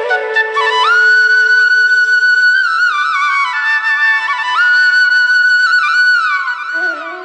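Background music: a melody of long held notes that slide and waver between pitches, over a lower sustained note in the first half.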